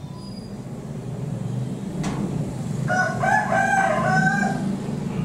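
A rooster crowing once, a call of about a second and a half starting about three seconds in, over a low steady hum.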